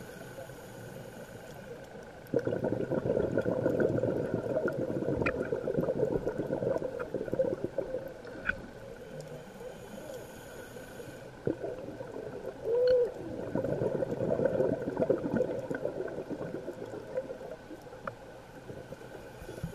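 Scuba diver's exhaled bubbles from the regulator gurgling past the underwater camera, in two long bursts starting about two seconds and twelve seconds in, with quieter stretches between, and a few faint clicks.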